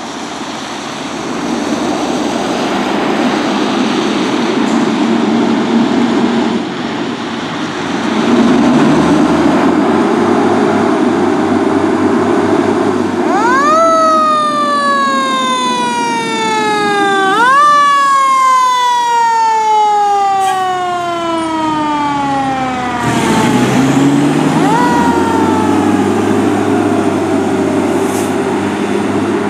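Pierce fire engine responding: engine and vehicle noise, then its mechanical siren winds up twice, about 13 and 17 seconds in, each time climbing quickly and coasting down slowly in pitch, with a brief chirp near 25 seconds.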